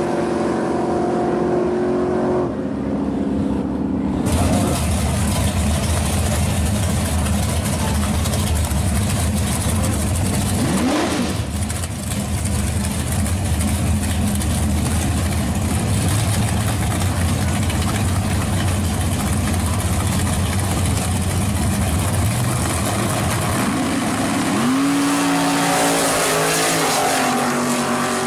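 Drag racing engines: cars running at steady high revs far down the strip, then a loud, rough idle of a first-generation Camaro and a dragster staged at the starting line. Near the end the engines rise sharply in pitch as the pair launch.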